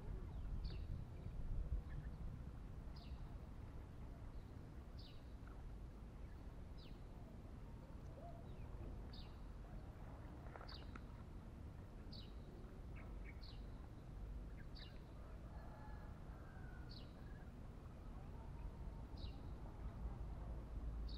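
A bird calling faintly, a short high falling chirp repeated about every one to two seconds, over a low steady rumble.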